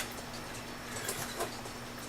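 Clock movement's mainspring being wound with a key, the click ratchet giving a few scattered clicks over a steady faint hum.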